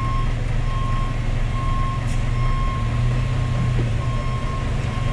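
A fire truck's reversing alarm beeping about once a second over the steady low drone of a diesel truck engine.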